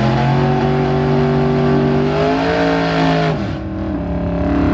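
1961 Ford Fairlane drag car's engine held at high revs for a burnout, rear tyres spinning and smoking. The revs climb a step about two seconds in, then the driver lets off about three and a half seconds in and the engine drops back to a lower, steady speed.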